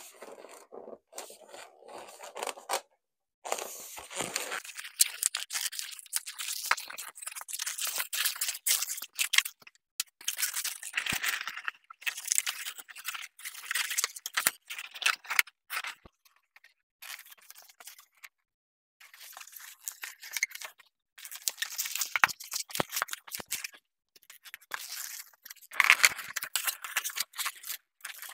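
Latex balloons being handled, twisted and pressed into place: irregular runs of scratchy rubbing and crackling from rubber against rubber, broken by short pauses.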